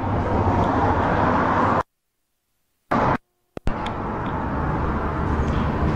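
Street traffic noise, a steady rush of passing cars, that drops out abruptly to dead silence twice for about a second.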